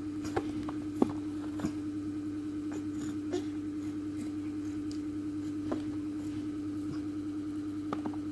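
Steady electric hum of a small motor or compressor running, with a fast, even pulsing, and a few light taps on top, the loudest about a second in.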